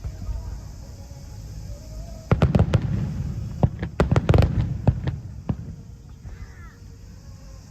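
Aerial fireworks shells bursting: a rapid cluster of sharp, loud bangs begins about two seconds in and runs for about three seconds before thinning out, over a steady low background rumble.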